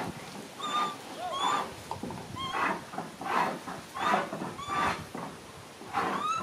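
Short high animal chirps and squeaks recurring about once a second, mixed with noisy rustling and scraping bursts.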